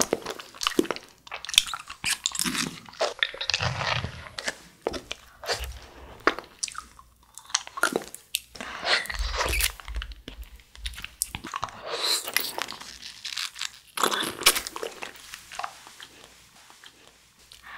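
Biting and chewing of a firm Dely-Gely fruit jelly, with irregular wet clicks and smacks of the mouth.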